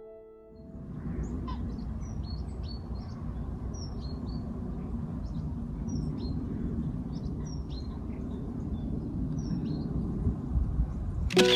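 Birds chirping with many short, high notes over a steady low rumble, with a brief sharp burst of noise near the end.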